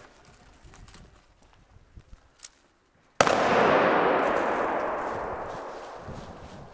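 Airsoft grenade going off with a sudden loud bang about three seconds in, followed by a long rush of noise that fades away over about three seconds.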